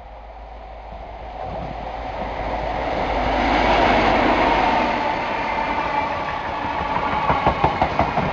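First Great Western High Speed Train passing close by on the through line. The class 43 power car's engine and the rolling noise build to their loudest about four seconds in, then the coaches follow, their wheels clicking in quick succession over the rail joints near the end.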